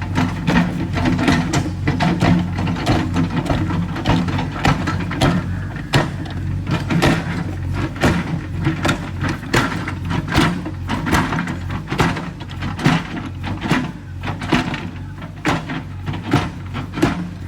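Road-construction machinery: an engine running steadily, with frequent knocks and clatter over it.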